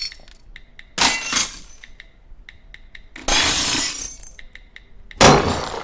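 Glass shattering sound effect, played three times about two seconds apart, each crash followed by faint tinkling of pieces.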